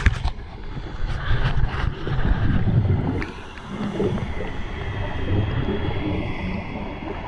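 Muffled, low underwater rumble heard through a diver's camera. It swells louder from about one to three seconds in, then settles to a steadier rumble, with a sharp click at the very start.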